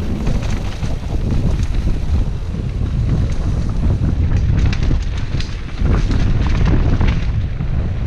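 Heavy wind buffeting on the microphone of a camera riding a mountain bike downhill. From about halfway through there is a run of sharp clicks and rattles as the bike crosses rough ground.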